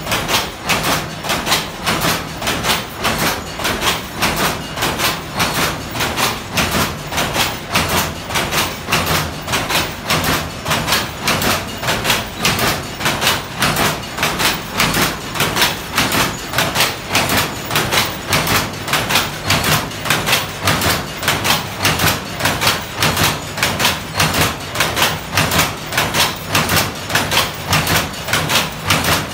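Saree loom weaving: a fast, even clatter of the beater and shuttle striking with each pick, roughly two to three strokes a second.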